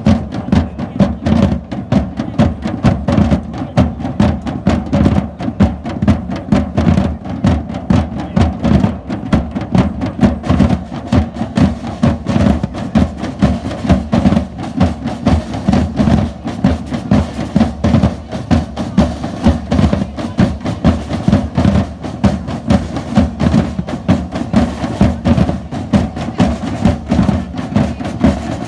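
Percussion band playing drums in a loud, steady, continuous rhythm of dense strikes.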